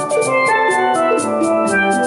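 Double-second steel pans played with rubber-tipped sticks: a quick run of bright, ringing melody notes and chords.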